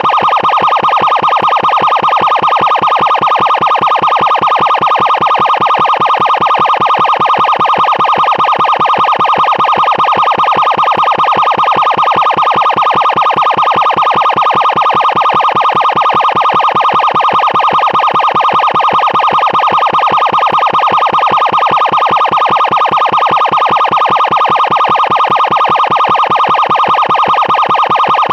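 Loud electronic emergency siren sounding a steady, harsh tone that pulses rapidly, holding one pitch without rising or falling.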